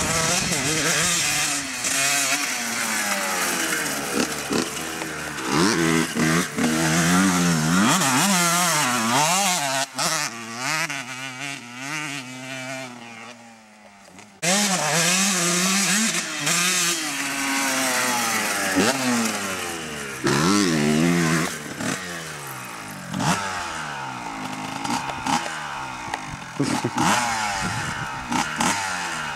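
Motocross dirt bike engines revving up and down repeatedly as they are ridden hard round a dirt track, the pitch rising and falling with each burst of throttle. There is an abrupt cut about halfway through. Near the end the engine is a two-stroke Honda CR125R.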